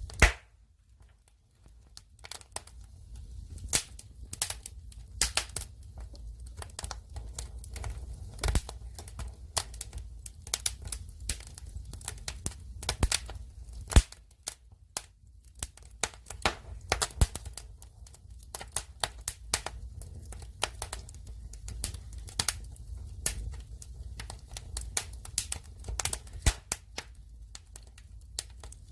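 Firewood burning: irregular crackling with sharp pops from the burning logs, one loud pop about halfway through, over a low steady rumble of the fire.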